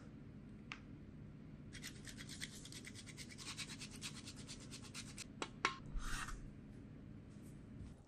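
A wedge of Parmesan cheese grated by hand on a grater, a quick run of rasping strokes lasting a few seconds, followed by a couple of light knocks and a short scrape.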